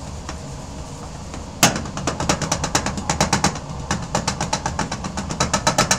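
Lidded stack of 80- and 325-mesh metal test sieves being shaken by hand to sift powder: a sharp knock about a second and a half in, then rapid rattling knocks, about five a second.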